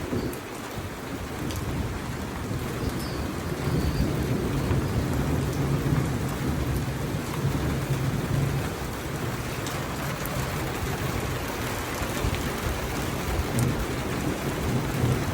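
Steady rain hissing and pattering, with a low rumble that swells for several seconds in the middle.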